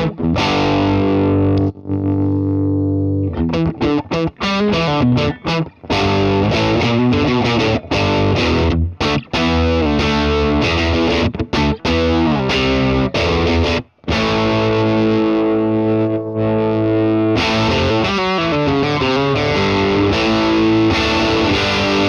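Distorted electric guitar played through an AnalogueTube LoveBomb preamp pedal: chords and riffs, some left to ring, with a few short breaks. The pedal's Power Sag control is being swept while he plays.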